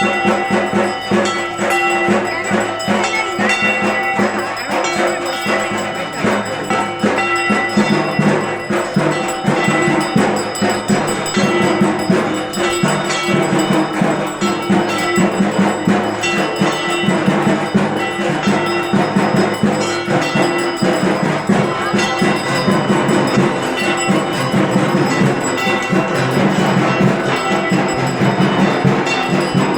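Durga Puja aarati percussion: rapid, unbroken beating of drums and struck metal, with bells ringing steadily over it.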